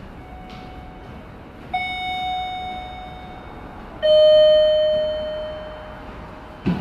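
Two-note descending chime from a railway station's public-address system, 'ding' then a lower, louder 'dong', each note ringing out and fading, the kind that comes before a station announcement. A short thump near the end.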